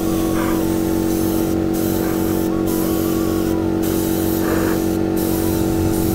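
Pneumatic paint spray gun hissing as it sprays black paint onto an alloy motorcycle wheel. The hiss is broken by about four short pauses, over a steady low hum.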